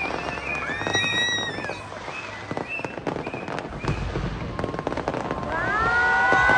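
Large New Year's Eve fireworks display: a dense crackle of small bursts throughout, with deeper booms joining about four seconds in and rising whistles near the end.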